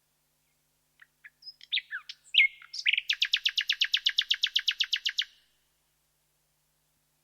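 Common nightingale singing one song phrase: a few soft notes and varied chirps, then a fast run of repeated notes, about ten a second, lasting about two seconds and stopping abruptly.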